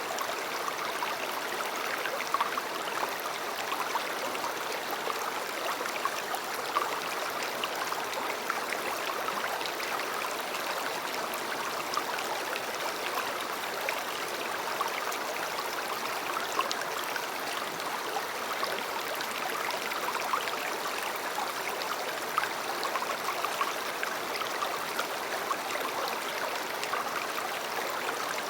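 A river flowing steadily, a continuous rushing of water with many small splashes and gurgles.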